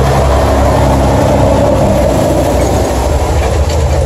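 Diesel engine of a big semi truck pulling a loaded flatbed trailer past close by: a deep, steady engine note with heavy road and tyre noise. The engine note drops back about a second in as the tractor goes by and the trailer's wheels roll past.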